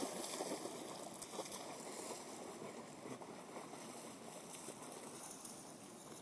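A dog splashing through shallow river water at the bank, the splashing and sloshing growing quieter as it slows and wades out.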